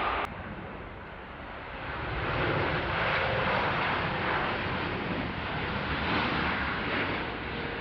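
Jet airliner engines on approach to land, a steady broad roar that grows louder about two seconds in as the plane comes closer, after an abrupt cut just after the start.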